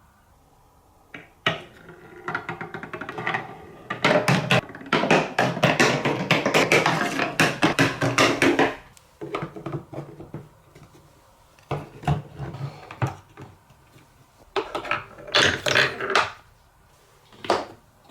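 Marbles rolling and clattering down plastic TrixTrack wave-slope marble-run track: bursts of quick clicking, densest and loudest from about four to nine seconds in, then shorter bursts after.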